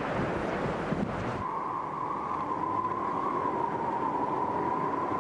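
Strong wind buffeting the microphone in a gusting rush. About a second and a half in it cuts to a steady, slightly wavering whine over a low rumble.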